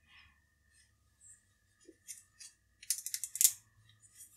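Light clicks and scrapes of a small tool loosening a grub screw in a 3D-printed plastic focus platform, a few faint ticks, then a quick run of louder clicks about three seconds in.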